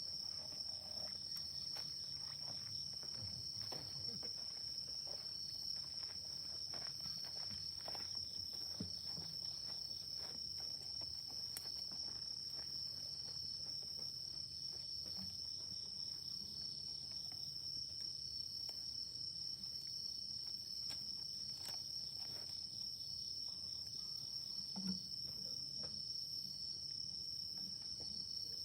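Insects trilling steadily in a constant high-pitched chorus, with faint scattered clicks underneath.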